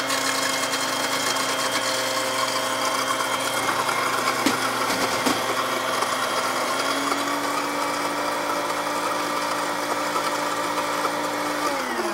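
Electric countertop blender running steadily, whirring as it blends egg yolks, lemon juice and melted margarine into hollandaise sauce. Right at the end it is switched off and its whine falls away.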